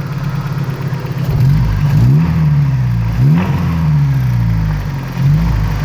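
1988 Toyota pickup's 22RE four-cylinder fuel-injected engine, breathing through a glasspack exhaust, idling and then revved three times, each rev rising and easing back down.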